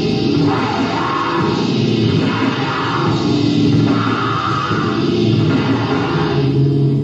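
Grindcore band playing live: heavily distorted electric guitar and drum kit, loud and dense. The song cuts off abruptly at the very end.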